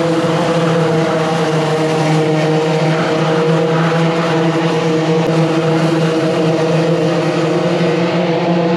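Racing kart engines droning steadily as the karts lap the circuit, a constant buzzing hum with little change in pitch.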